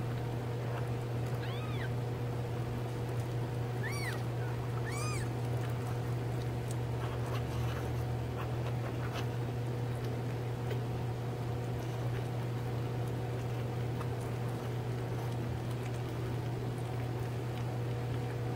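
Three-week-old kittens mewing: three short, high-pitched mews, one about a second and a half in and two more about four and five seconds in, over a steady low hum.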